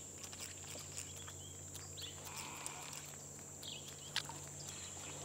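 Faint outdoor ambience with a steady low hum and a few short, faint animal calls scattered through it.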